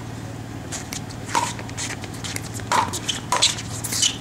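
Pickleball paddles striking a hard plastic pickleball back and forth in a rally, each hit a sharp hollow pock. The hits come about a second and a half apart at first, then more quickly toward the end, over a steady low hum.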